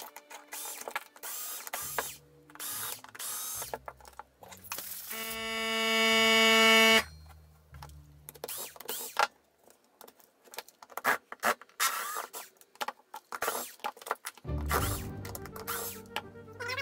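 Ryobi cordless screwdriver whirring as it backs out the housing screws of a Lister Stablemate clipper, with one steady run of about two seconds a few seconds in that is the loudest sound. Around it are many clicks and clatters of the clipper's plastic parts being handled and set down.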